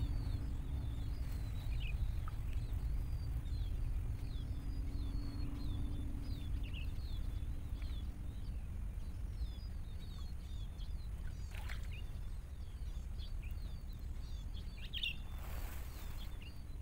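Small birds chirping in many quick, scattered high notes over a steady low rumble of outdoor noise, with a brief rustle near the end.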